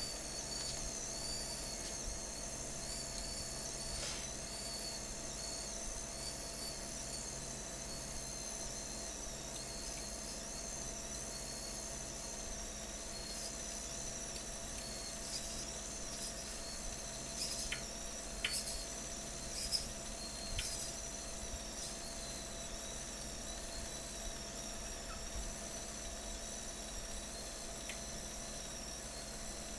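Small electric winch motor on an RC crawler running with a steady, high-pitched whine over a low hum. A few light clicks come past the middle.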